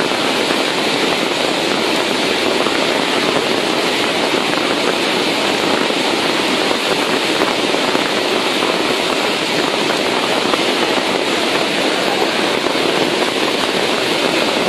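Overflowing river in flash flood: a torrent of muddy floodwater rushing past in a steady, unbroken wash of noise.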